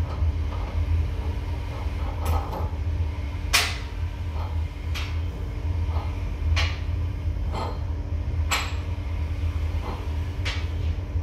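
Short knocks and clinks, about ten of them at uneven intervals with the loudest about three and a half seconds in, as the spindle moulder's tooling and fence are adjusted by hand, over the steady low hum of a running dust extractor.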